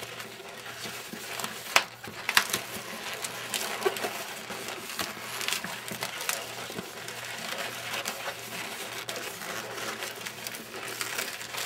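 Inflated latex 260 modelling balloon squeaking and rubbing under the hands as it is twisted into small bubbles and pinch twists, with irregular sharp squeaks.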